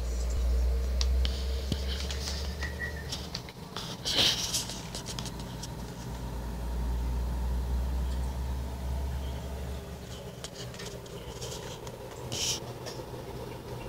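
Steady electrical hum and buzz from a homemade laser projector rig running, its galvanometer scanners and power supply. A deeper rumble comes and goes, and there are brief scrapes about four seconds in and near the end.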